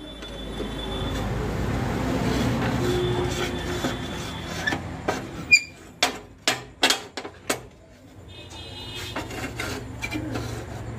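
Steel strip being worked on a hand-lever scroll-bending jig bolted to a steel plate. A steady scraping noise swells and fades, then about five seconds in comes a quick run of sharp metallic clinks and knocks, some ringing.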